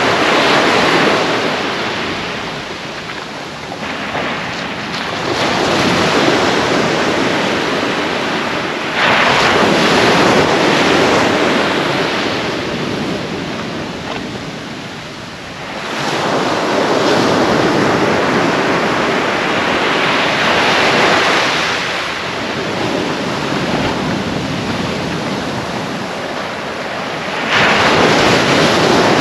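Surf breaking on a sandy beach a few metres away, several waves surging in and draining back, the last crashing in suddenly near the end. Wind buffets the microphone throughout.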